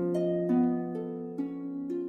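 Soft background music of plucked notes, a new one about every half second, over a steady held low tone.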